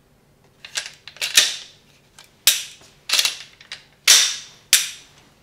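A series of about seven sharp clacks over four seconds, each dying away quickly with a short ringing tail.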